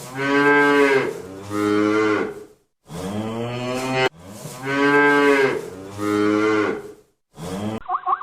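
Cow mooing: two long low moos, each about a second, then after a short pause the same pair of moos again.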